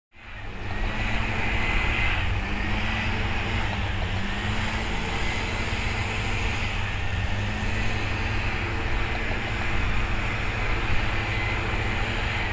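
Outdoor ambience: a steady low rumble with hiss, and a faint droning hum that wavers slowly in pitch like distant engine noise.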